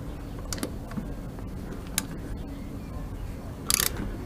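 A few light clicks of a hand screwdriver's bit on the oil filter cover bolts of a Keeway Strike 125 engine as they are tightened in turn, with a brief scrape near the end.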